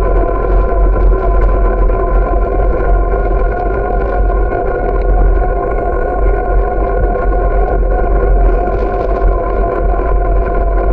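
Wind buffeting the microphone of a camera on a moving bicycle, a heavy steady rumble, under a steady droning hum of road noise as the bike rolls along smooth asphalt.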